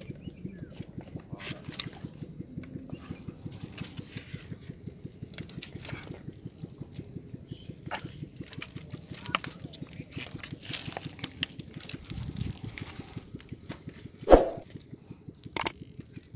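Wet squelching and splashing of mud and water as water hyacinth and fish are handled and feet move through the mud, with many small scattered clicks over a steady low rumble. A single sharp knock sounds near the end.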